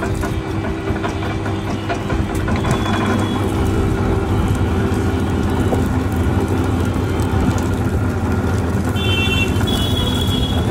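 Sugarcane crushing machine running, a steady low mechanical drone.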